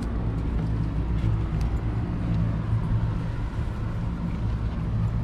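A steady low mechanical hum, like a running motor or engine, with no change in level.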